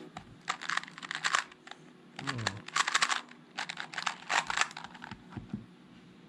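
Rapid clusters of plastic clicking and clacking as the layers of a black plastic 2x2 speed cube are turned quickly during a timed solve, with short pauses between bursts of turns.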